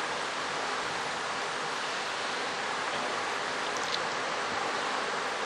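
Steady, even hiss of background noise, with no other sound standing out.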